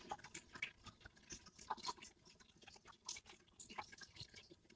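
Faint, scattered soft taps and ticks of fingers pressing small scraps of raw pie dough into gaps in a pie's top crust, in a few short clusters.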